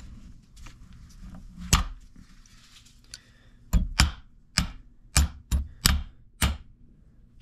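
Hammer blows on metal: a single strike, then a run of seven strikes about half a second apart.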